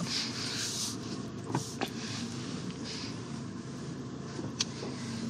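Tata Punch's 1.2-litre three-cylinder petrol engine and road noise heard from inside the cabin while driving: a steady low hum over a hiss, with a few brief sharp clicks.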